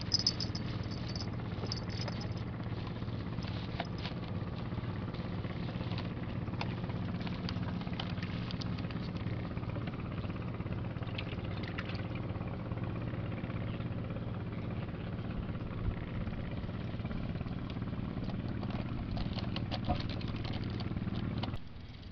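A small boat engine running steadily with a low, even hum, stopping abruptly near the end.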